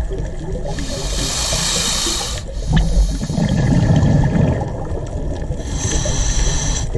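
Underwater sound of a scuba diver breathing through a regulator: a hissing inhale, then a low rumble of exhaled bubbles, then a second hissing inhale near the end.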